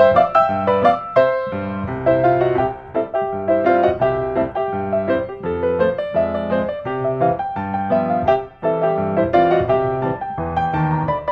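Background piano music: a steady run of struck melody notes over lower sustained notes.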